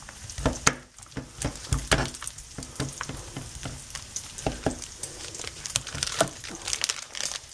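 Bacon and onions sizzling in a frying pan, with many sharp, irregular pops and clicks, while a knife cuts into a plastic sausage package.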